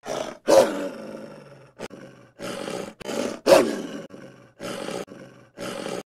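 Wolf growling in a string of about eight short growls with brief gaps between them; the two loudest come about half a second and three and a half seconds in.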